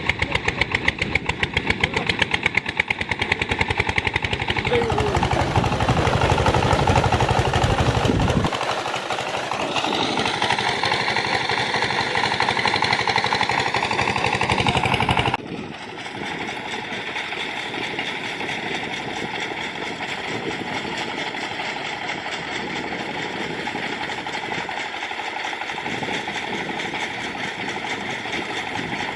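Engine of a rice threshing machine running, with a rapid, hard pulsing for roughly the first eight seconds. About fifteen seconds in it drops suddenly in loudness and runs on more steadily.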